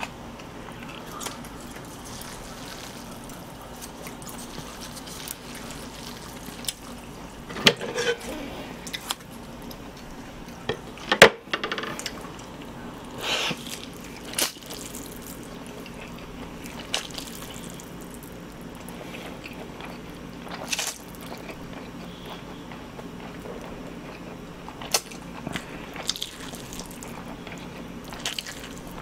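Close-up wet eating sounds of a person slurping and chewing a mouthful of chewy spicy mixed noodles, with scattered short smacks and clicks; the sharpest click, about eleven seconds in, is the loudest.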